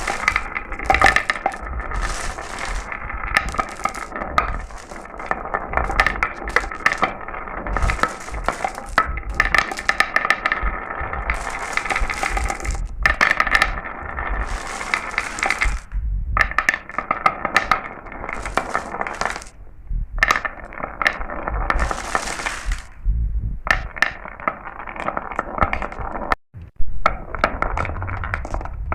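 Marbles rolling and clattering down a marble run: a dense stream of clicks and rattles over a steady ringing hum from the rolling, cut off by a brief silence near the end.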